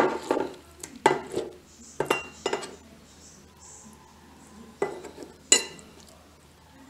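Kitchen knife knocking and scraping against a plastic cutting board as a flathead fillet is trimmed, about six sharp irregular knocks with short ringing.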